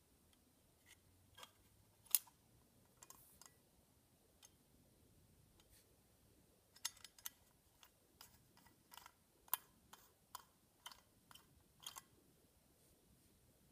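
Scattered light clicks and taps of a tinplate Hornby O gauge toy train tender being handled and turned over in the hands, a few at first and then a busier run of about a dozen near the end.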